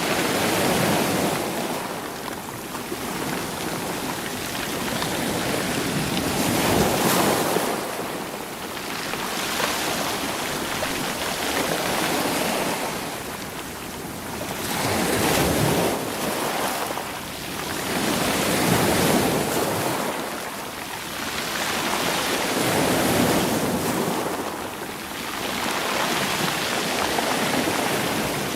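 Sea waves surging in over a stony shore and drawing back, rolling the rocks and pebbles. The rush swells and falls away every few seconds.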